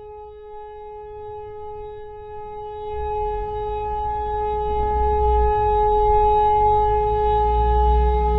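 Civil defence siren sounding one steady, unwavering tone that swells louder over the first few seconds: the German steady-tone all-clear signal. A low rumble grows beneath it about three seconds in.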